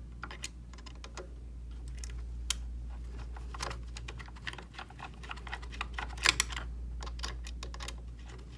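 Scattered light clicks and taps of a hex driver working the small screws and nuts that hold an ROV thruster in its mount, with a brief cluster of sharper clicks about six seconds in. A steady low hum runs underneath.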